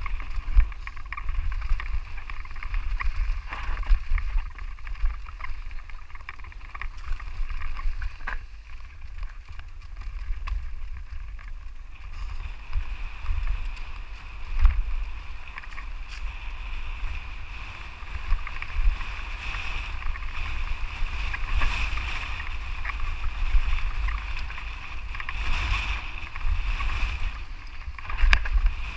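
Mountain bike descending a rocky dirt singletrack, heard through a mounted action camera. A steady rumble of wind and riding noise runs under scattered sharp knocks and rattles as the bike hits bumps and stones.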